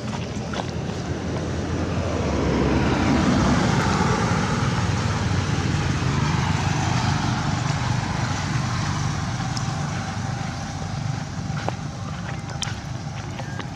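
A motor vehicle passing on the road, engine and tyre noise growing to its loudest about three to four seconds in, then slowly fading away.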